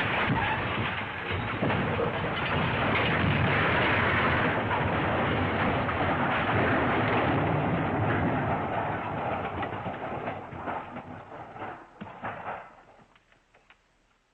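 A long crash sound effect: a dense, rumbling clatter of crashing debris for about twelve seconds, then scattered pieces clattering as it dies away near the end.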